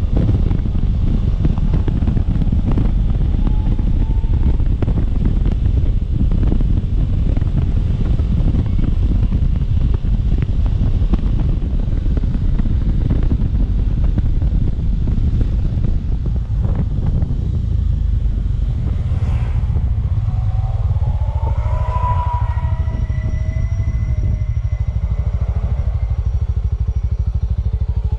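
Suzuki Thunder motorcycle engine running under way, with wind rushing over the microphone; it eases off somewhat past the halfway point as the bike slows. A brief wavering whine sounds about three quarters of the way through.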